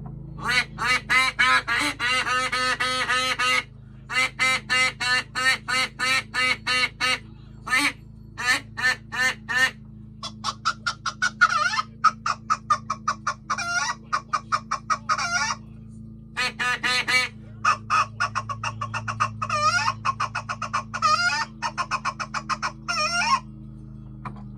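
Duck quacking in quick runs of short calls, about four or five a second, in several bouts with short pauses between them, over a steady low hum.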